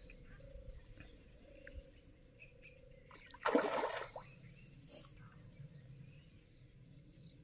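A hooked carp splashing once at the surface about three and a half seconds in, a short loud slosh, against faint water and a few small bird chirps.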